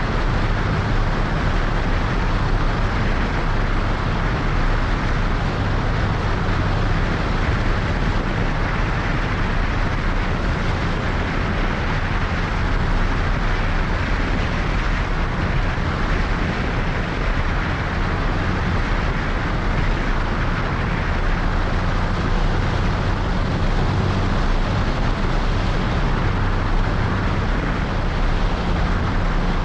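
Cessna 182's six-cylinder piston engine and propeller running steadily on final approach, with a rush of airflow over the strut-mounted camera.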